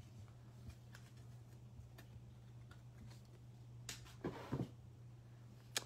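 Faint, sparse clicks and taps of trading cards and packaging being handled, over a steady low hum, with a brief mouth sound a little past the middle.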